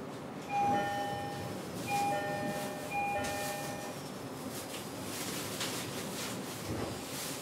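Door chime inside a JR East E129 series train, sounding the same tone three times in a row, each about a second long, over steady carriage background noise.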